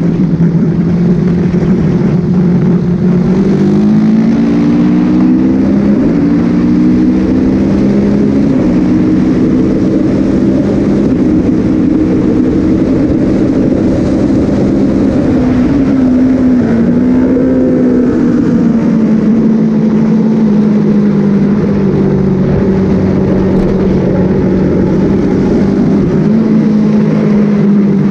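Sport motorcycle engine heard from on board at track speed, with wind rush. Its pitch climbs in steps over the first several seconds as it accelerates through the gears, then holds high and fairly steady, with a brief dip and pick-up in the middle.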